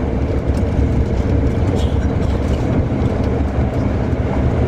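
Tour bus driving along, heard from inside the cabin: a steady, loud low rumble of engine and road noise.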